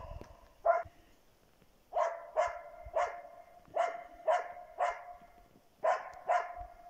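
A hunting husky barking repeatedly: about nine sharp barks, some single and some in quick pairs, with short pauses between.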